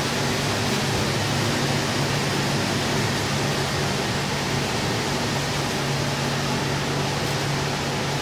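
Steady low hum under an even hiss: background room noise, with no distinct event.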